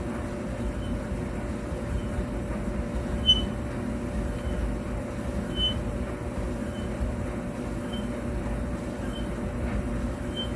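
Gas clothes dryer running, its drum tumbling with a steady low rumble and a short high squeak repeating evenly about every second and a quarter. The owner thinks the squeak comes from a worn rear drum bearing.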